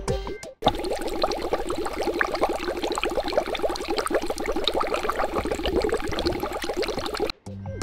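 Bubbling, gurgling water: a dense run of small bubble sounds that starts suddenly about half a second in and cuts off abruptly near the end.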